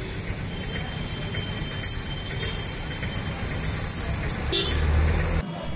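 Street traffic: motorbikes and other road vehicles running past, a steady low rumble that swells briefly near the end, then cuts off suddenly.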